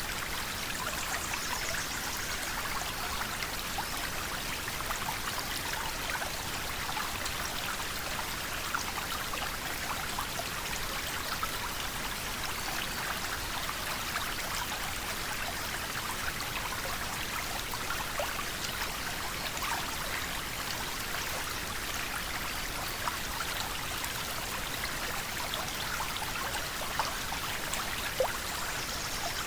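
Shallow river flowing, water babbling and trickling steadily with small splashes, and now and then a single louder plop.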